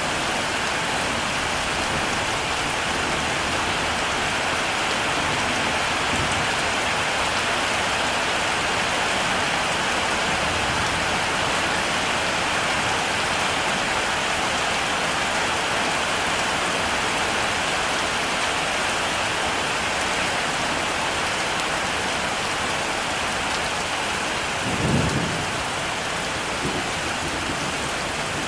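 Heavy rain falling steadily as a dense, even hiss, with one brief low rumble of thunder near the end.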